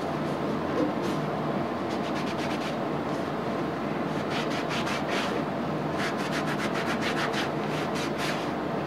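Cloth rag rubbing over a freshly de-rusted metal rotary-table handle in quick repeated wiping strokes, busiest in the second half, over a steady background hum.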